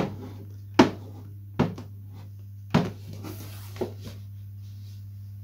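A covering iron knocking and pressing against the fabric-covered balsa fuselage of a model glider as the covering is ironed on: five sharp knocks roughly a second apart, the last one fainter, over a steady low hum.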